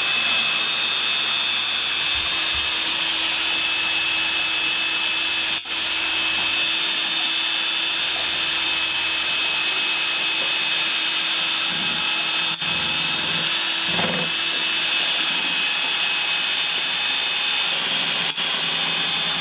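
Electric drill spinning a paint-mixing paddle in a bucket of white paint, its motor whining steadily, with three momentary dips along the way. This is the paint being stirred to break down any lumps before painting.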